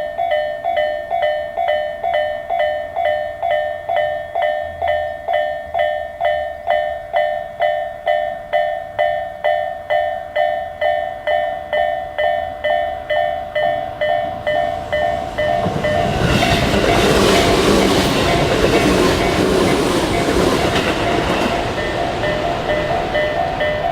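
Japanese level-crossing warning bells, Tobu's electronic crossing sounds from both sides, ringing at about two strokes a second. About fifteen seconds in, a Tobu 1800 series electric train passes over the crossing. Its loud running noise covers the bells, which keep ringing beneath it.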